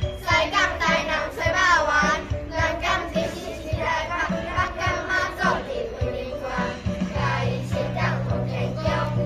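A group of children singing a song together over a backing music track, with a steady bass line coming in near the end.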